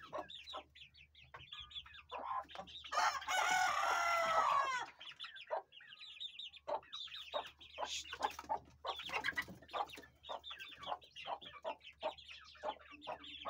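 Chickens calling: hens clucking and chicks peeping in short high notes throughout, with one loud, long crow-like call lasting about two seconds, starting about three seconds in.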